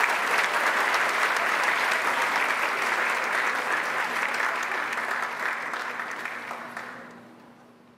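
Audience applauding, a dense steady clapping that fades out over the last second or two.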